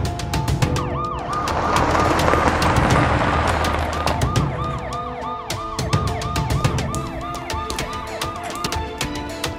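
Ambulance siren in a fast yelp, rising and falling about three times a second, over dramatic film music, with a rush of noise swelling in the first few seconds.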